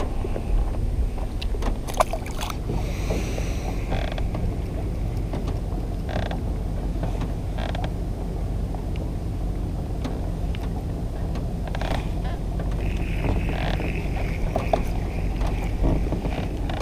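Small aluminum fishing boat on open water: a steady low rumble of wind and lapping water, with scattered clicks and knocks from a spinning rod and reel being handled.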